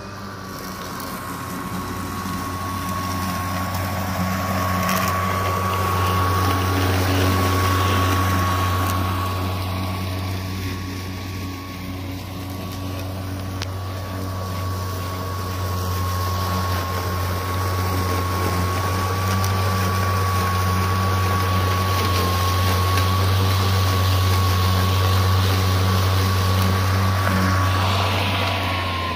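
Greenworks Pro 60V brushless 21-inch cordless lawn mower running while it is pushed through thick grass: a steady low motor drone with a thin high whine over it and the rush of the blade cutting grass. It swells over the first few seconds and eases off briefly about ten seconds in.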